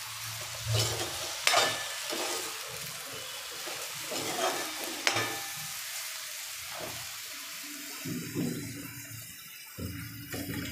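Sliced tindora (ivy gourd) sizzling in oil in a kadai over a raised gas flame, with a metal spatula scraping and clicking against the pan as it is stirred, the clicks mostly in the first half.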